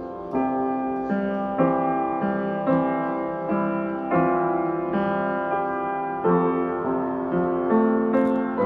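Slow piano music: single notes and chords struck about once or twice a second, each ringing on and fading.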